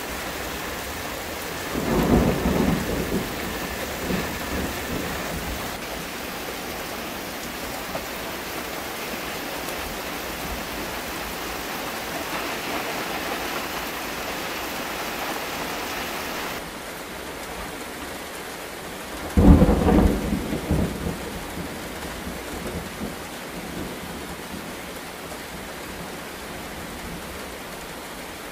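Heavy rain falling steadily in a thunderstorm, with two rolls of thunder: one about two seconds in and a louder one about two-thirds of the way through, each trailing off in rumbles. The rain's hiss turns duller a little before the second thunderclap.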